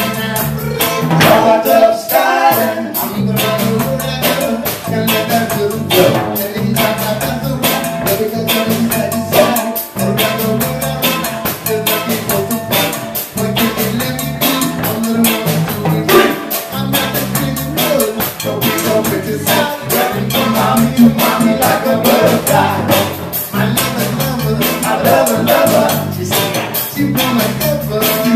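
Live reggae band playing: a man sings lead into a microphone over keyboards, guitars, drum kit and djembe, with a steady beat.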